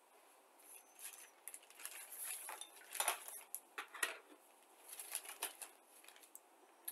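A clear plastic bag crinkling and rustling as it is handled, mixed with light clicks of plastic kit parts on sprues being set down and picked up. The sound comes in irregular crackling spurts.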